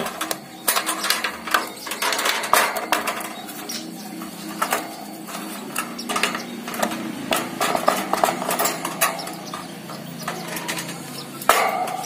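Metal wire bird cage being taken apart by hand: the bars and fittings rattle and clink in many irregular sharp clicks and knocks.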